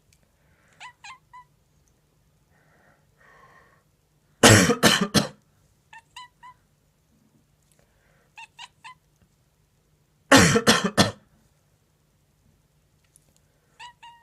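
A person coughs in two fits of three or four hard coughs, about four and ten seconds in. A sleeping cat answers with much quieter, short chirping grumbles, two to four at a time, before and after each fit.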